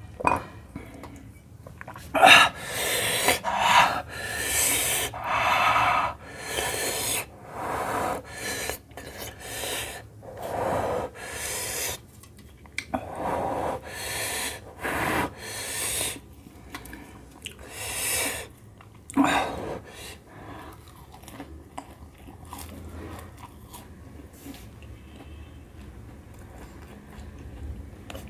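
A man breathing hard through the mouth close to the microphone: loud hissing breaths about one a second, mixed with chewing. After about twenty seconds the breaths stop and only quieter chewing remains.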